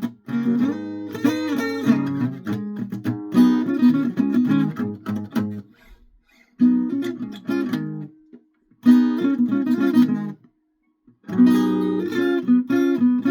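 Guitar being played, picked notes and strummed chords, with two short stops, about six seconds in and about ten and a half seconds in.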